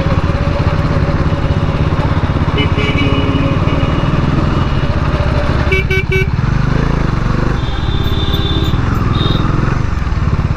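Bajaj Dominar 400's single-cylinder engine running on its stock exhaust under way in traffic. Vehicle horns sound over it: one about two and a half seconds in, three quick toots around six seconds, and another horn near eight seconds.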